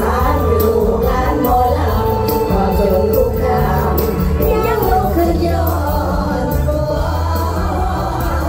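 Live Isan mor lam band music over a loud stage sound system, with singers singing over a steady bass line and beat.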